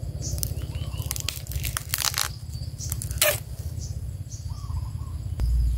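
Scattered crackles and snaps of a bamboo shoot and its dry papery sheaths being broken and handled. A low rumble on the microphone sets in near the end.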